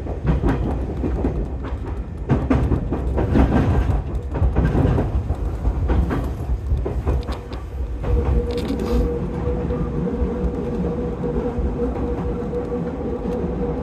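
Electric commuter train running, heard from inside at the front car. The wheels clatter over the points and crossings in the first half, and a steady hum joins about eight seconds in as it runs on plain track.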